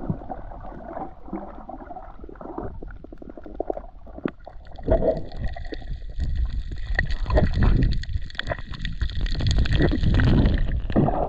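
Underwater sound heard through a GoPro action camera held by a snorkeler: muffled low rumbling and gurgling of water, with scattered clicks. About halfway through it gets louder and a hiss is added on top.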